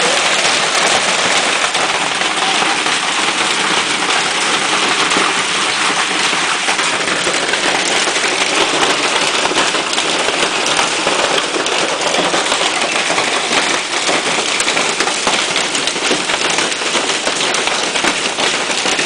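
Large hailstones falling hard in a storm, a dense, steady stream of countless small impacts on surfaces.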